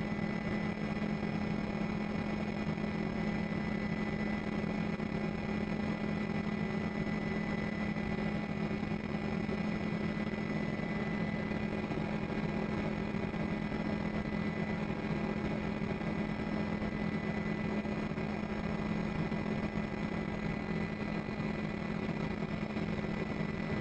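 Steady, unchanging mechanical drone: a strong low hum with a few faint, steady whining tones above it.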